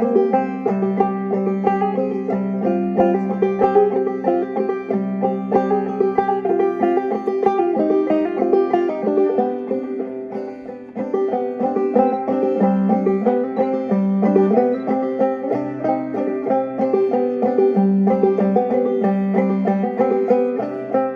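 Banjo played in clawhammer style: a steady run of plucked notes over a repeating low drone. It drops in volume for a moment about ten seconds in.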